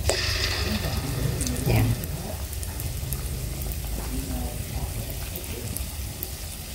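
Battered jackfruit pieces deep-frying in hot oil in a wok: a steady, rain-like sizzle full of fine crackles as the batter bubbles.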